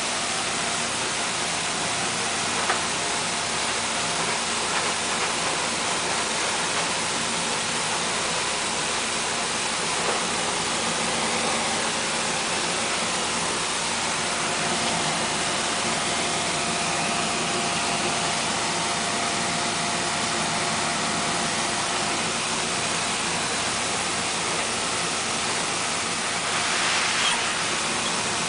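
Rice milling machine running steadily: an even mechanical whir and hiss with a faint steady tone, growing slightly louder near the end.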